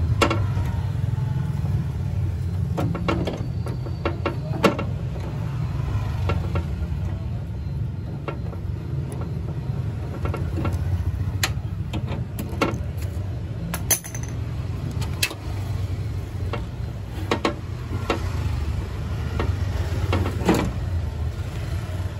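Scattered metallic clicks, knocks and scrapes of a 10 mm socket and extension bar being turned by hand on a power-window regulator bolt inside a car door, over a steady low hum.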